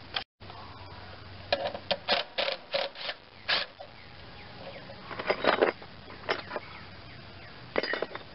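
Socket wrench working a bolt on the tractor's side plate: sharp metallic clicks and knocks in short clusters, several quick ones together, then a few more spaced out.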